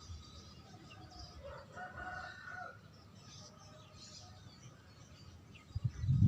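A rooster crowing faintly in the background, about one and a half seconds in, over faint high bird chirps. Low thumps come near the end.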